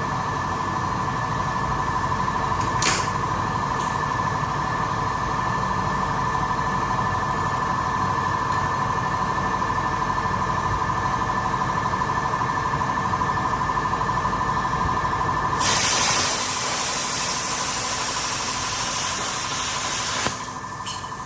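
Metal cutting on a mower deck: a steady high machine whine over a low hum. About sixteen seconds in it gives way to a loud hiss lasting about five seconds, which cuts off suddenly.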